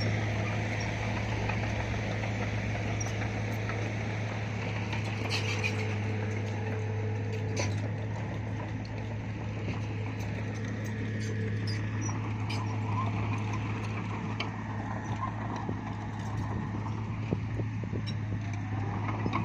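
Bulldozer's diesel engine running steadily with a low drone, with scattered sharp clicks over it.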